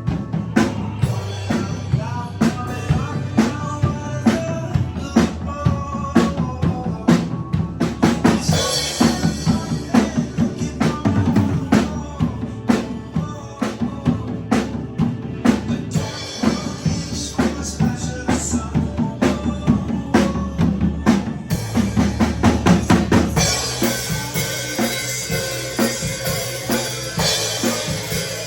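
Drum kit played along to a recorded rock song, a steady beat of kick drum and snare over the song's guitars and vocals. Cymbals wash over the beat in the last few seconds.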